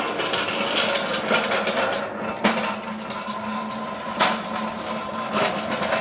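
Empty hand pallet jack pulled across asphalt, its steel wheels rumbling and rattling over the rough surface, with a few sharp clanks from the forks and handle.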